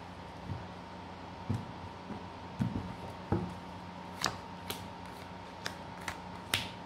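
Playing-size fortune-telling cards being handled on a table: about ten scattered short clicks and taps, irregularly spaced, as cards are drawn and laid down. A faint steady hum runs underneath.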